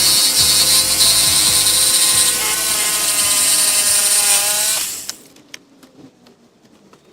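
Battery-powered 6-inch chainsaw running and cutting wood, a steady motor whine with chain noise, then released and winding down about five seconds in, followed by a few faint clicks.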